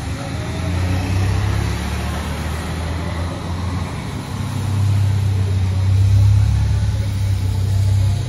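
TIG welding arc on a steel pipe with filler rod being fed in: a steady low hum with a faint hiss above it, growing somewhat louder about five seconds in.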